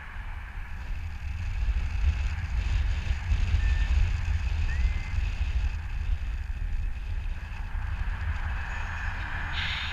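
Wind rushing over the camera microphone in paraglider flight: a gusting low buffeting with a hiss above it. It swells a second or so in, is loudest about four seconds in, then eases.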